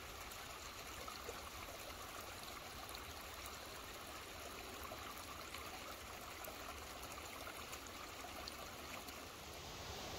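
Shallow forest creek trickling over rocks: a steady, faint wash of running water.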